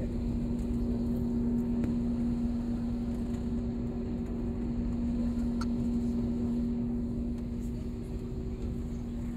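Aircraft engine drone, steady, with a constant low hum.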